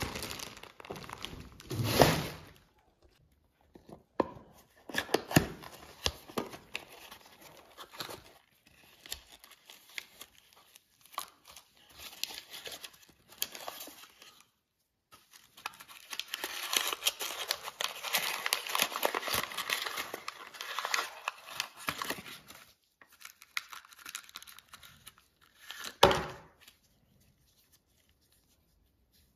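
Plastic bags and cardboard packaging crinkling, rustling and tearing as new motorcycle parts are unwrapped, in irregular spells, with two louder sudden rips, about two seconds in and near the end.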